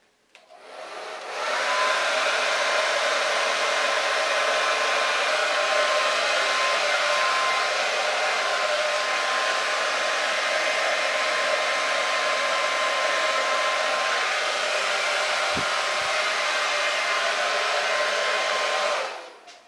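Handheld hair dryer switched on and blowing air steadily, a rush of air with a thin steady whine. It builds to full speed over the first couple of seconds and is switched off near the end.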